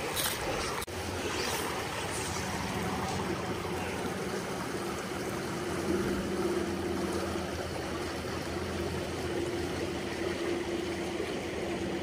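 Small shallow creek flowing and rippling around the wader's legs, an even steady water rush. Under it runs a steady low hum that grows a little stronger in the middle.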